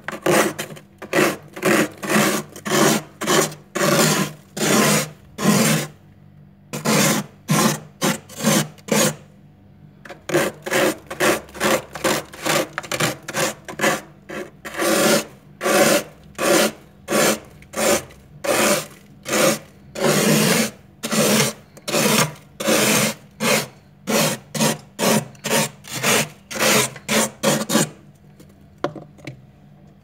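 Thick freezer frost being scraped off the freezer wall with a small hand tool: rasping strokes at about two a second, with a couple of short pauses, stopping a couple of seconds before the end.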